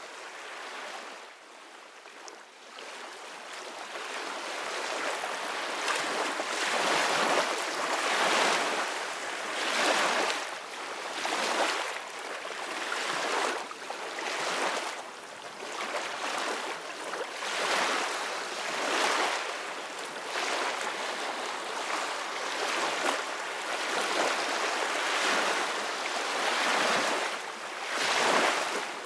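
Ocean waves washing in as a steady rush of surf. It rises and falls in surges every second or two, softer for the first few seconds.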